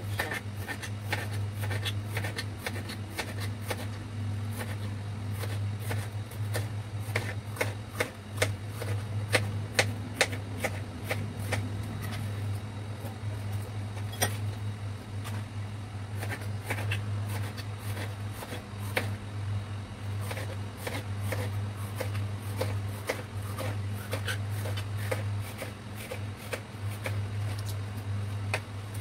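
Knife slicing bitter gourd on a plastic cutting board: a quick, irregular run of clicks as the blade goes through and strikes the board. A steady low hum runs underneath.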